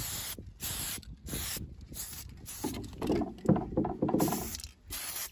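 Aerosol spray can of paint for iron parts hissing in short bursts, with brief silent gaps between them, as rust-covered steel is painted. About three to four seconds in, louder knocking and rubbing from handling the metal is the loudest part.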